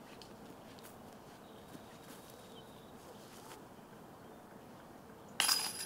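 Quiet outdoor background, then near the end a sudden loud metallic jangle with a ringing tone: a disc striking the chains of a disc golf basket.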